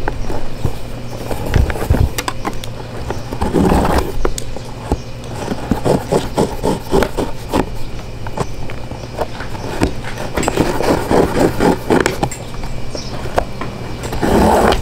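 Waxed laces pulled out through the eyelets and metal speed hooks of leather boots, scraping and clicking in several short bursts, with a low steady hum underneath.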